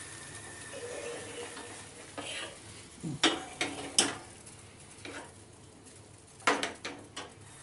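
Boiling water poured from a steel saucepan into a hot pan of roasted semolina and vegetables, hissing as it goes in. This is followed by several sharp clinks and knocks of a metal spatula and the pot against the pan and the gas stove grate.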